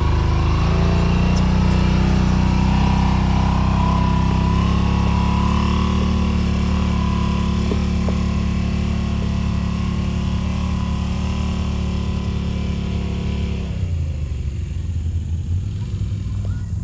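Side-by-side UTV engine running at steady revs as the machine crawls along a trail, then the throttle eases off about fourteen seconds in.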